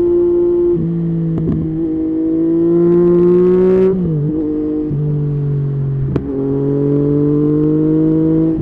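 Yamaha MT-09 three-cylinder motorcycle engine with an Akrapovic exhaust, pulling under steady throttle while riding. Its pitch climbs slowly and steps down at an upshift about a second in and again around four seconds in. A sharp pop comes about six seconds in.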